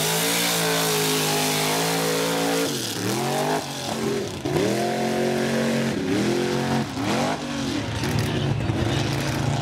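Mud racing buggy's engine run hard from the start line, its pitch climbing and holding high, then falling and climbing again several times as the throttle comes off and back on across the mud pit.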